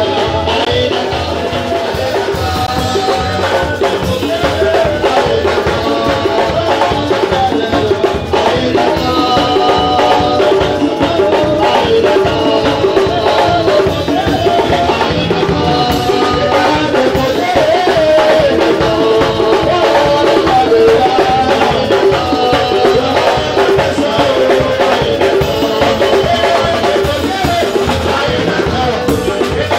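Live praise music: voices singing through a microphone over a steady, driving beat of drums and hand percussion.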